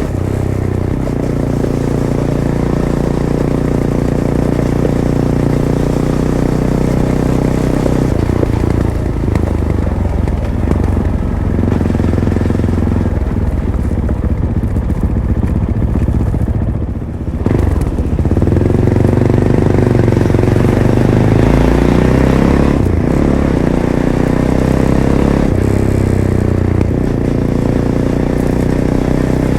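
Fantic Caballero 500's single-cylinder four-stroke engine running through its stock Arrow exhaust under way on dirt tracks, its revs rising and falling. There is a brief drop in level about seventeen seconds in.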